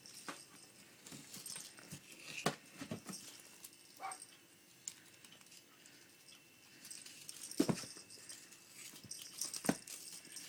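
Sporadic soft knocks and rustles of a cat batting at and pouncing on a stick toy, with a brief faint pitched sound about four seconds in.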